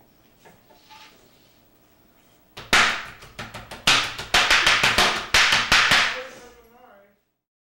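A quick, irregular run of loud, sharp smacks lasting about four seconds, which then stops abruptly.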